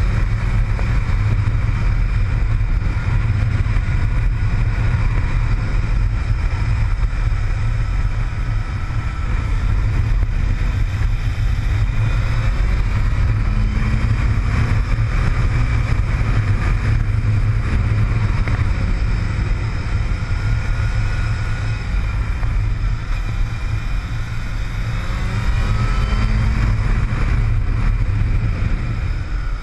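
Yamaha motorcycle engine running under way through a series of bends, its pitch rising and falling with the throttle. Heavy wind noise on the bike-mounted microphone sits underneath.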